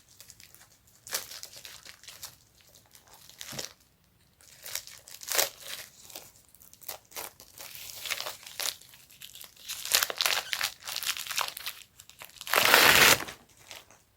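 Packaging crinkling and rustling in irregular strokes as it is handled, with one louder, longer rustle near the end.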